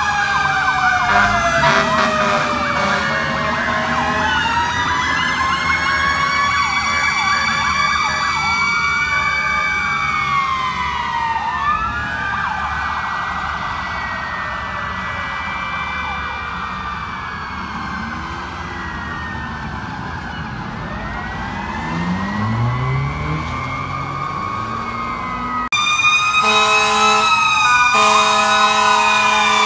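Several fire truck sirens wailing at once, their rising and falling tones overlapping. Near the end, a louder horn blasts, stops and sounds again over the sirens.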